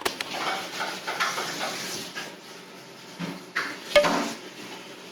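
Dishes and cutlery clinking and clattering, with a few sharper knocks a little past halfway through, the loudest about four seconds in.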